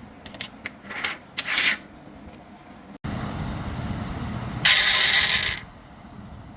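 Workshop work noises: a few clicks and two short scrapes, then a louder low rumble and a loud rasping burst of about a second, typical of working aluminum parts by hand.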